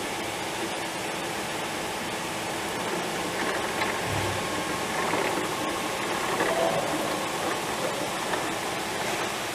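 Teknek CM III tacky-roll cleaning machine running, with a steady mechanical whirring noise from its drive and rollers.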